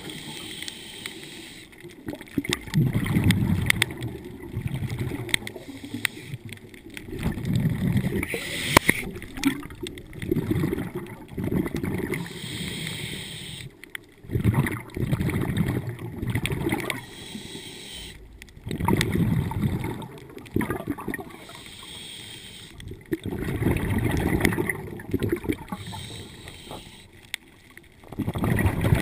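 Scuba diver breathing through a regulator underwater. A hissing inhale is followed by a rumbling burst of exhaled bubbles, and the cycle repeats about every four seconds.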